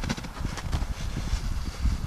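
Plastic bag crinkling and rustling as a horse mouths it and lifts it off the snow, over wind buffeting the microphone with a steady low rumble.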